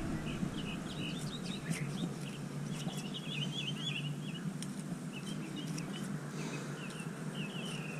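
Small birds chirping in quick runs of short high notes, over a steady low hum and a few faint clicks.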